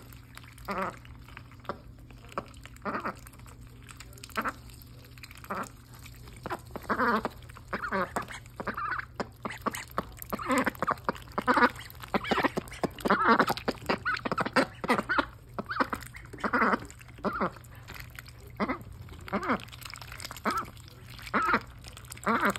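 Ducklings feeding from a bowl of wet cereal and feed: many short sounds of their bills dabbling in the food, coming thicker about halfway through.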